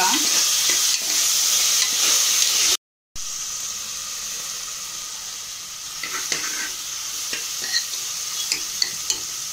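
Chopped onions and green chillies sizzling in hot oil in a metal pot, being fried until brown while a steel spoon stirs them; from about six seconds in the spoon scrapes and clicks against the pot. The sound cuts out briefly about three seconds in.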